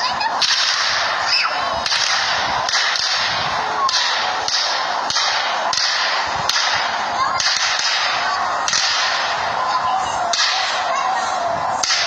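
Fireworks cake firing a continuous barrage: sharp cracks of shots launching, about three every two seconds, over a steady hiss from the burning comets.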